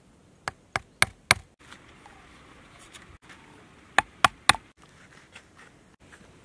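A hammer knocking on the top of a PVC pipe, driving it into a watermelon's rind to punch out a round plug. Four quick knocks about half a second in, then three more about four seconds in.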